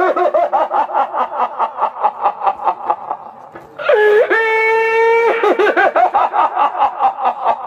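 Shehnai-like reed horn playing rapid pulsed notes, then one long held note that rises at its start, then rapid notes again.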